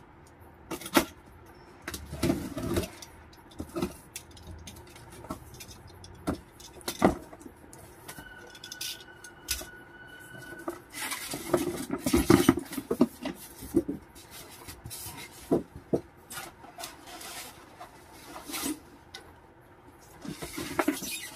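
Cardboard carton being unpacked by hand: the tape is slit, the flaps are opened and the packing is rustled and scraped, with scattered knocks and clicks. A thin steady squeal lasts a couple of seconds about halfway through. The loudest rustling and scraping comes a little after that.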